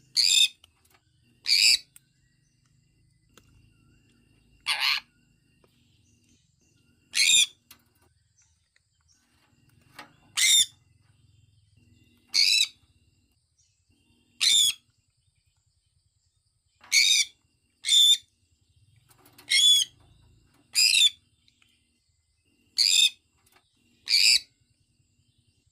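Sun conure chirping: short, shrill calls, about a dozen of them, one every one to three seconds.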